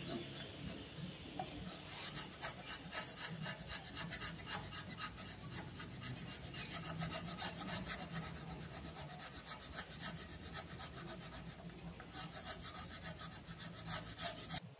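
Wood chisel scraping and paring the floor of a groove cut in a wooden board, in quick repeated back-and-forth strokes.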